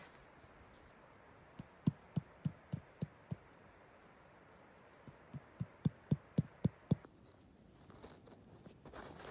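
Two quick runs of dull, low thumps, about four a second, each run lasting under two seconds, over a faint steady hiss that cuts off near the end.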